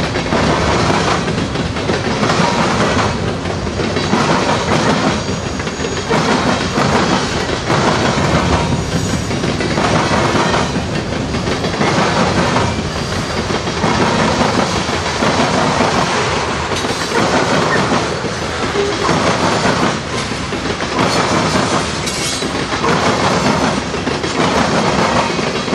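Freight cars of a passing freight train rolling by, loud and steady, with wheels clacking in repeated groups over the rail joints.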